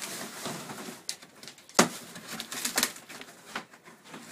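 Old painted canvas skin being pulled off a wooden canoe hull, rustling and crackling with several sharp snaps as it tears free of the hull.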